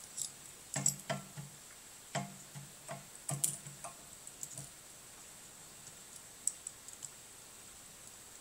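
Small sharp clicks and taps of a plastic power plug and crimped wire terminals being handled and fitted together, several in quick succession in the first half, then a few isolated ticks near the end.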